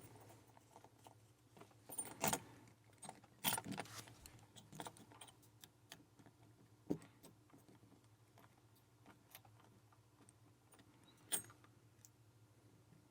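Keys hanging on the shackle of an aluminium padlock jangling, with small scattered metal clicks, as the lock is handled and picking begins. The loudest jingles come about two seconds in, around three and a half to four seconds, and again near eleven seconds.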